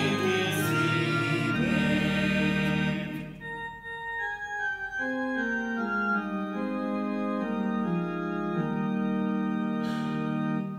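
Organ playing a hymn, with the congregation's singing in the first three seconds or so; the organ then plays on alone in held, stepping chords and stops abruptly at the end.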